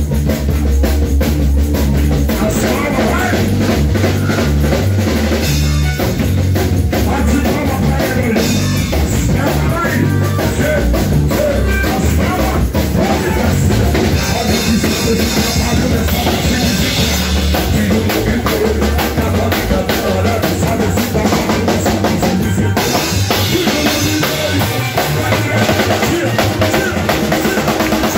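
Live band playing a fast, loud worship song, led by a drum kit with a pounding bass drum and rim hits over electric guitar and keyboard.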